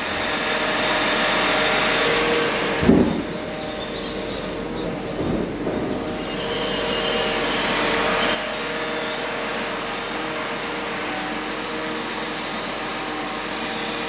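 Log-loading machine at work, a steady mechanical running noise. A dull knock comes about three seconds in and the noise drops a little at about eight seconds.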